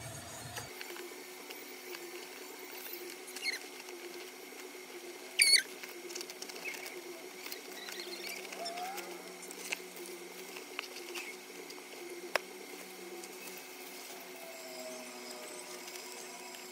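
Brown paper wrapping being handled and opened: continual crinkling and rustling, with a loud short squeak about five and a half seconds in and a sharp click a few seconds before the end.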